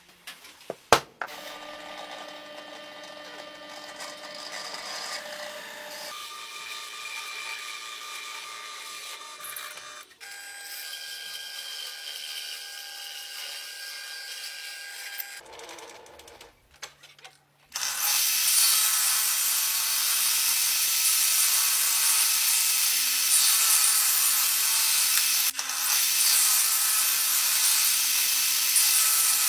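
A sharp knock about a second in, then a drill press running as a large boring bit cuts a hole into a plywood block, a steady motor sound with a few held tones. About eighteen seconds in, a table saw with its blade tilted takes over, cutting through the plywood much louder with an even high hiss.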